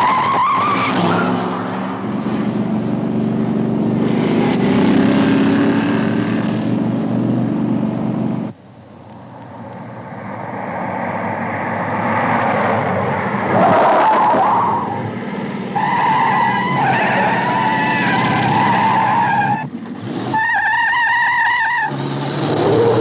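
Car chase: large sedans' engines revving hard and tyres squealing and skidding through turns. The sound cuts off suddenly about eight seconds in and builds again, with several long tyre squeals in the second half.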